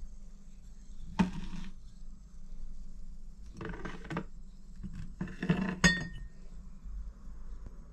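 Glass bottles being handled and set down, clinking and knocking three times, with a sharp glass clink near the end that rings briefly.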